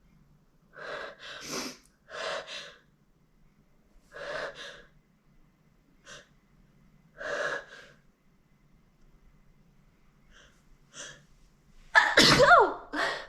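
A person's sharp, gasping in-breaths every second or two as a sneeze builds. About twelve seconds in comes one loud, wet sneeze with a voiced cry that falls in pitch, followed by a short breath.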